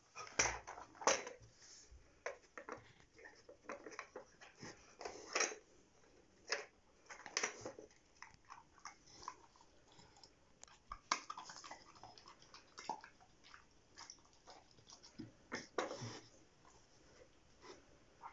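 A Bernese mountain dog puppy nosing and chewing at a plastic treat puzzle toy: irregular clicks and knocks from the plastic pieces, mixed with chewing.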